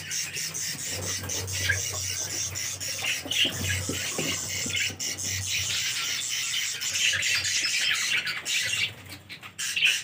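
A colony of budgerigars chattering and chirping, busy and continuous, briefly quieter near the end.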